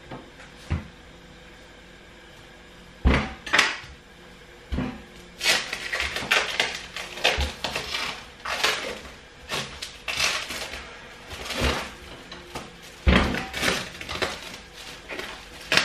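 A knife and watermelon knocking on a wooden cutting board, a few sharp knocks. From about five seconds in, a thin plastic bag crinkles and rustles as it is pulled over a cut half of watermelon, with further knocks against the board.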